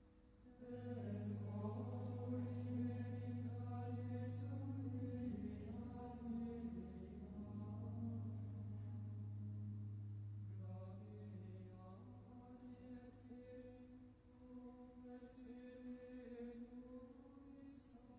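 A single voice singing a chant-like liturgical melody over held accompaniment chords, starting under a second in. The bass note drops lower about five seconds in and comes back about two seconds later, and the singing gets quieter in the second half.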